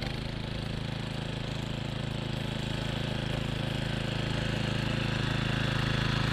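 Small engine of a walk-behind reel mower running steadily as it is pushed along the grass, growing slowly louder as it comes closer. The machine is being used to roll the lawn rather than cut it.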